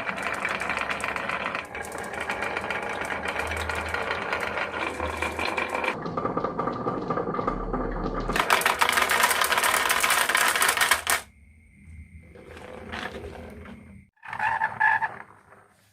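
Marbles rolling and clattering down a HABA marble run, a dense rapid clicking that goes on for about eleven seconds and then stops suddenly. Fainter rolling follows, then a short, louder clatter with a ringing note near the end.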